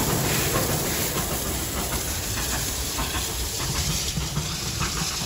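Victorian Railways R class 4-6-4 steam locomotive R761 and its train running past, with steam hissing and steady wheel-on-rail noise that slowly grows quieter as it draws away.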